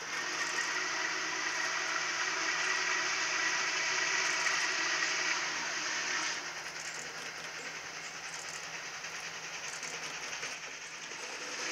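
Norfolk & Western Class J 611 4-8-4 steam locomotive working up the grade, a steady hiss of steam and exhaust. The hiss eases about halfway through and swells again near the end.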